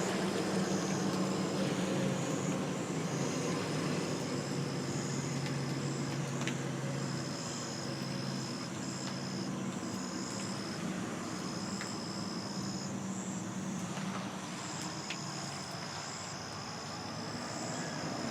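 Insects trilling in long, steady, high-pitched stretches that start and stop every second or few, over a low steady hum.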